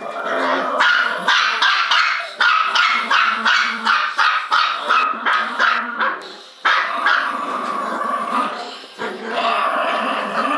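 Small Bichon-poodle and Maltese-poodle mix dogs barking non-stop: a rapid run of sharp barks, about three a second, then after a brief break about six seconds in, a denser, more continuous stretch of barking.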